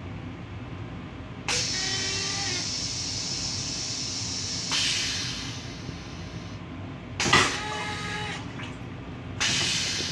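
Steady low rumble of a moving Metro-North M7 railcar, heard from its restroom. Over it come four sudden bursts of hissing air or water, about two to three seconds apart, each fading away. The third burst is the loudest and has a whistling squeal in it.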